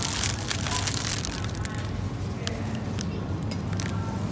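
Plastic wrapping on a pack of avocados crinkling and crackling as it is picked up and handled, densest in the first second, then in sparser clicks, over a steady low hum.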